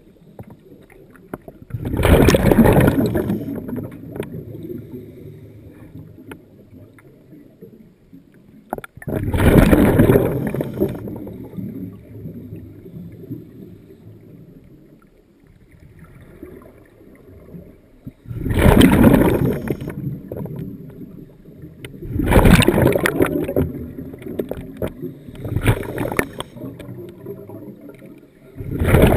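Scuba diver's regulator heard underwater: loud rushing bursts of exhaled bubbles about six times, each lasting a second or two, a few seconds apart, with quieter rumbling between them.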